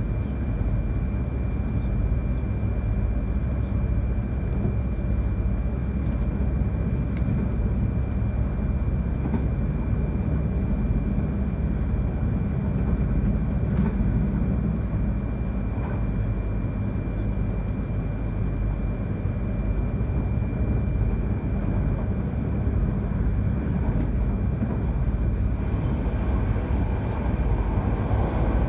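Cabin noise of an E3-series Yamagata Shinkansen train running: a steady rumble of wheels on rail, with a thin high steady tone that fades out near the end.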